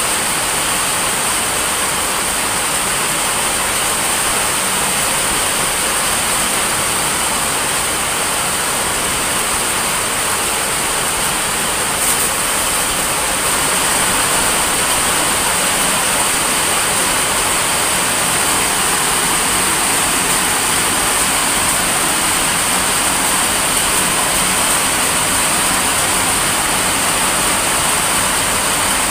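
Steady rain falling, an even hiss that gets a little louder about halfway through.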